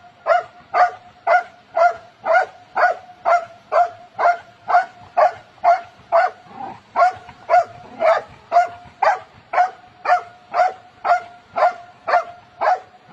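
A dog barking over and over at an even pace, about two short barks a second, each at the same pitch.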